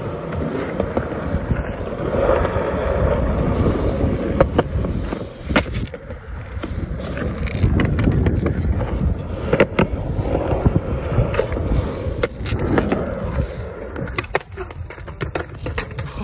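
Skateboard wheels rolling over rough concrete with a steady rumble, broken by sharp clacks and slaps of the board's tail and deck hitting the ground, most of them in the second half.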